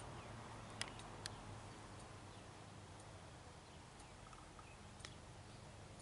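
Near silence: faint steady background noise, broken by two sharp clicks about a second in and one more near the end.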